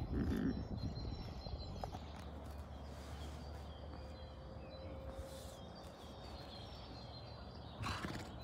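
Outdoor ambience: a steady low wind rumble on the microphone with faint bird chirps, and a short louder noise near the end.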